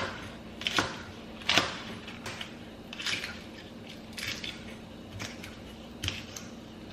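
Kitchen handling sounds: about eight irregular knocks and clatters, the loudest near the start, over a steady low hum.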